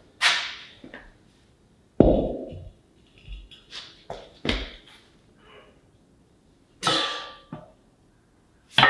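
A series of knocks and clanks as heavy steel parts of a Mack truck's camelback spring suspension are handled and set down on a concrete floor. The loudest, a heavy thud, comes about two seconds in, and one clank near the end of the run rings briefly like struck metal.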